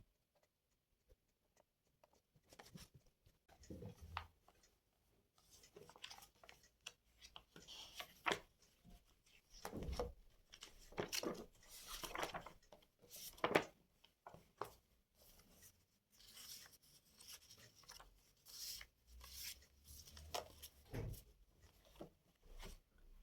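Close, irregular handling sounds: small taps, scrapes and rustles of objects being moved and worked by hand, with a few sharper knocks midway.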